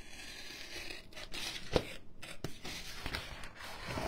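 X-Acto craft knife scraping and tearing through the paper facing of a foam board, with several light taps and knocks.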